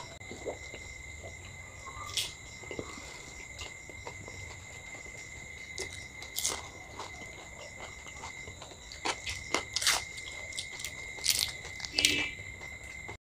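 Crunching and chewing of mouthfuls of dahi puchka, crisp hollow puri shells filled with curd, with scattered crunchy bites that come more often in the last few seconds. A steady high-pitched whine runs underneath.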